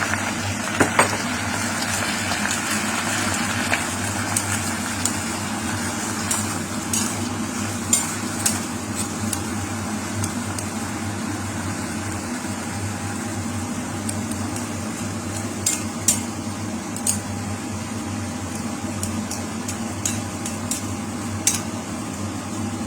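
Squid and beef tripe frying in a pan, with a steady sizzle. A spatula is being stirred through them and clicks against the pan a number of times.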